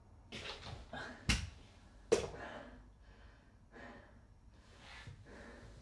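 Two sharp knocks about a second apart, the second ringing briefly: a metal crutch clattering onto a wooden floor, among a man's breathy vocal noises.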